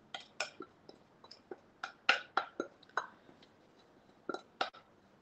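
Spatula scraping and tapping against a glass bowl: a string of irregular light clinks and knocks, some with a short ring.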